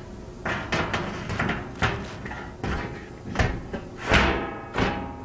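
Sheet-metal chiller access panel knocking and rattling against the unit's steel frame as it is fitted back into place: a string of irregular sharp metallic knocks that ring briefly, the loudest a little past four seconds in.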